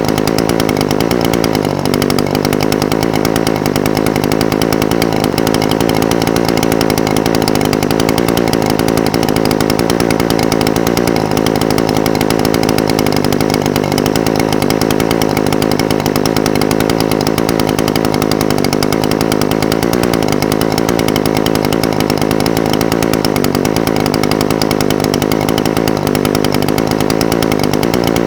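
Echo SRM-420TES brush cutter's two-stroke engine idling steadily, its pitch wavering slightly now and then.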